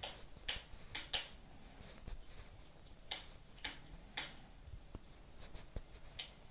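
Wood fire crackling in a fireplace: sharp, irregular pops and snaps at uneven intervals, several close together near the start and again around the middle.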